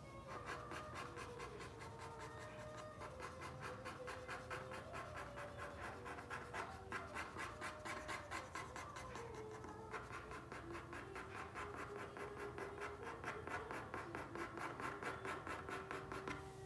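Rapid, regular scratching strokes of a drawing or painting tool on paper, about four to five strokes a second, with a few short breaks.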